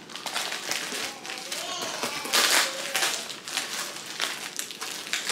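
Plastic poly mailer bag crinkling and rustling as it is handled and pulled open, with a loud sharp crinkle or tear a little over two seconds in.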